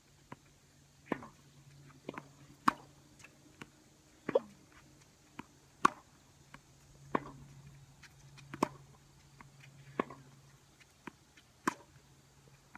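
Tennis ball being hit with rackets and bouncing on the court during a rally: a string of sharp pops about every one to one and a half seconds, over a faint steady low hum.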